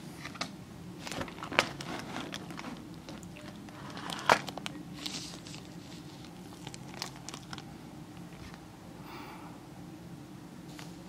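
Handling noise on a handheld camera: scattered clicks and crinkly rustles, with two sharp clicks about one and a half and four seconds in, over a low steady hum.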